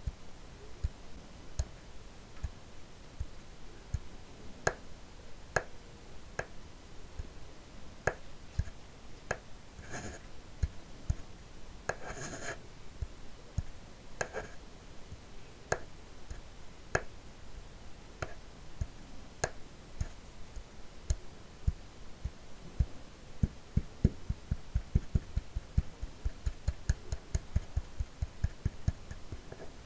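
Empty plastic kvass bottle handled close to the microphone: scattered taps and clicks on the plastic, with a few short scratchy crinkles in the middle. Near the end comes a fast run of dull low taps.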